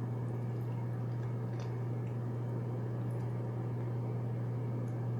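A steady low hum with a faint hiss, broken by a couple of faint soft clicks, one about a second and a half in.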